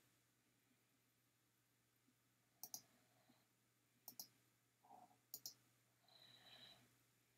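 Near silence broken by three faint clicks about a second and a half apart, each a quick press-and-release double click of a computer button as quiz answers are selected.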